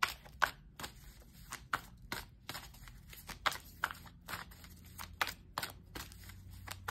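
A deck of oracle cards being shuffled by hand: a run of irregular, papery card clicks and flicks, two or three a second.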